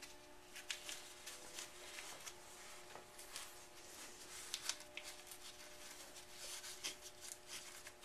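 Faint crinkling rustle of a model rocket's thin plastic streamer being rolled up tightly by hand: an irregular scatter of small crackles, over a steady low hum.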